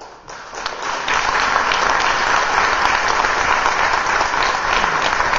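Audience applauding, swelling over about the first second and then holding steady and loud.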